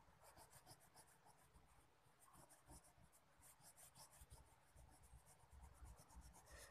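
Faint scratching of a wax crayon rubbed over paper in quick repeated strokes, colouring in a drawing.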